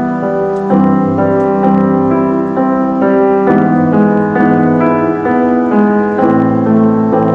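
Piano music: a slow melody of held notes over sustained low bass notes.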